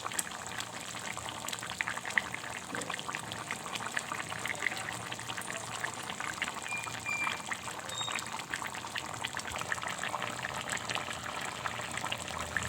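Chicken curry bubbling in its pot, a steady run of small pops and crackles as the watery gravy simmers with the meat nearly cooked.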